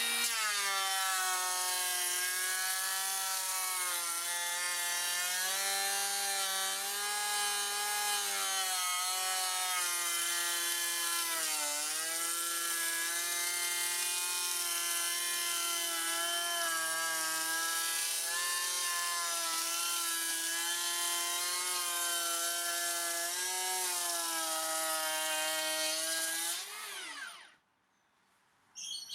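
Makita 40V XGT cordless planer cutting wood at full depth in one long pass, its high whine steady under load. The pitch sags briefly about twelve seconds in, and near the end the motor winds down and stops.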